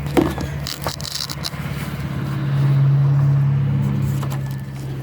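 A motor vehicle's engine hums steadily, swells to its loudest about halfway through and then eases back. Short clicks and scrapes come from the plastic latch piece of a roll-up tonneau cover being worked under its vinyl.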